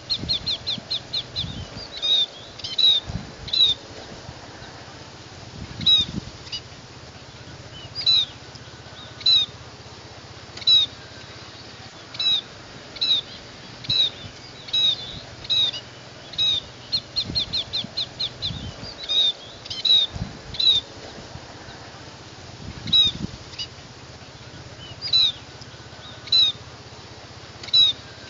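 Scaly-breasted munia calling: short, high chip notes repeated every second or so, at times in quick runs of several notes.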